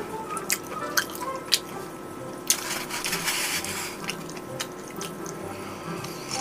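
A few small clicks and wet liquid sounds as a foam bowl is handled and drunk from, with a short stretch of sloshing about halfway through.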